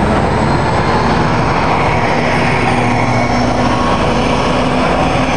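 Orion 05.501 CNG transit bus's rear-mounted engine running as the bus turns and passes close by, a steady low drone over street traffic noise.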